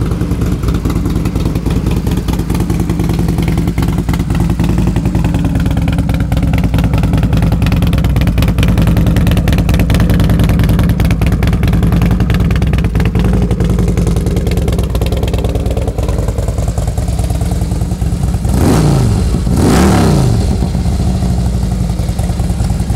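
Harley-Davidson Screamin' Eagle 103 V-twin idling through a 2-into-1 Thunderheader exhaust, then revved in two quick throttle blips near the end.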